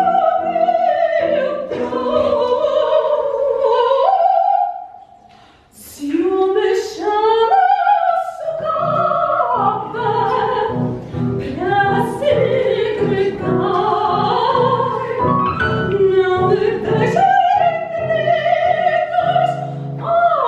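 Soprano singing a comic opera aria in Portuguese translation with piano accompaniment, her voice in a wide vibrato; the music pauses briefly about five seconds in, then the singing resumes.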